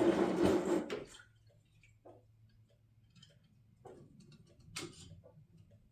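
Lower radiator hose clamp being tightened: a loud rasping burst of about a second, then light scattered clicks and taps of a tool on metal.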